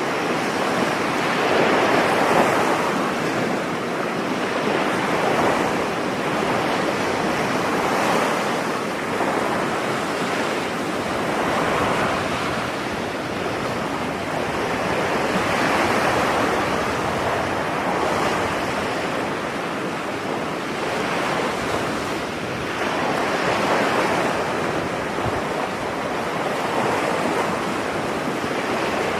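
Ocean waves breaking on a beach: a continuous surf wash that swells and eases every few seconds.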